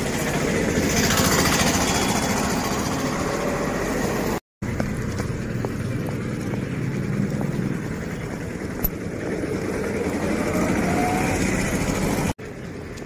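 Street traffic noise, a steady rumble of passing vehicles and engines, broken by a brief silent gap about four and a half seconds in.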